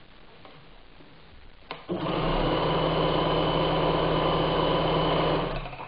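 Bernina 817 sewing machine sewing a zigzag stitch: a click, then about three and a half seconds of steady, even running that stops near the end.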